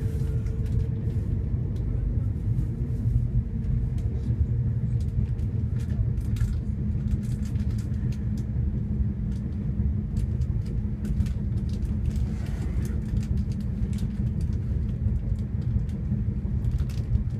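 Passenger train running steadily at speed: a continuous low rumble of wheels on rail, with scattered faint clicks and a faint steady hum.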